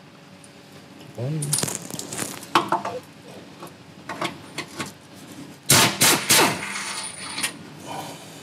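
Pneumatic impact wrench on a vehicle crossmember bolt, with two short loud bursts about two-thirds of the way in, amid light metallic clinks of the socket and bolt being handled.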